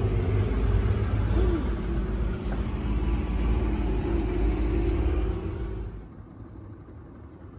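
Pontoon boat's outboard motor running with a steady low rumble. About six seconds in the sound cuts to a quieter, more distant engine.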